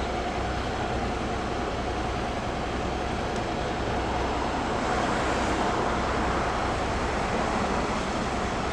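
Steady vehicle and street-traffic noise: an engine's continuous rumble with a faint steady whine.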